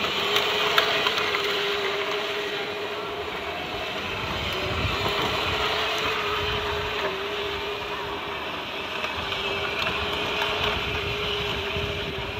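Power Wheels Jeep, a 12-volt ride-on toy boosted to 24 volts, driving in circles: its electric drive motors and gearboxes give a steady whine that wavers slightly, over the noise of its hard plastic wheels rolling on asphalt.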